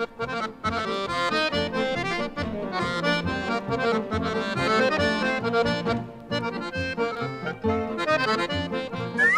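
Accordion music with a steady beat. A quick rising glide sounds near the end.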